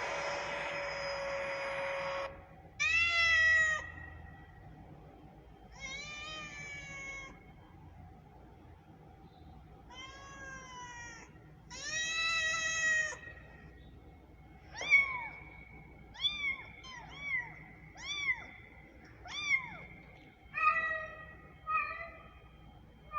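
Cat meowing: four long, drawn-out meows, then a quick run of short, high kitten mews about one a second. A steady hum runs for the first two seconds and cuts off.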